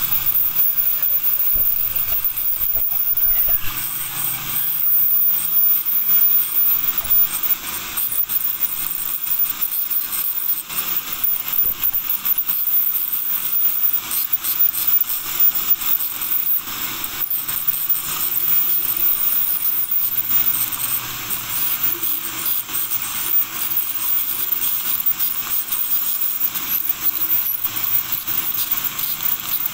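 Ultrasonic dental scaler running with its water spray, the tip working calculus off the lower front teeth: a steady high hiss with a thin high whine, flickering as the tip moves along the teeth.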